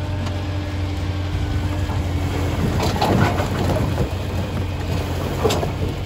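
Firewood logs sliding off a tipped dump-trailer bed and clattering onto a woodpile, the knocking starting about three seconds in. Under it, a tractor engine runs steadily.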